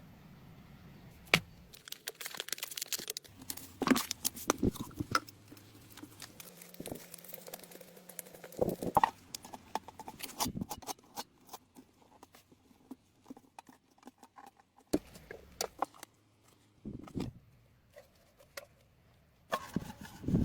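Scattered clicks, knocks and short scraping sounds of objects being handled, coming at irregular intervals.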